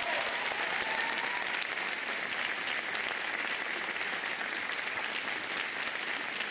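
Audience applauding steadily in a concert hall, a dense, even patter of many hands clapping.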